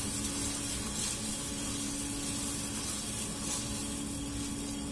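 Roasted robusta beans pouring from a small drum coffee roaster's discharge chute into its cooling tray: a steady hissing rush of beans, over the constant hum of the roaster's motor and fan.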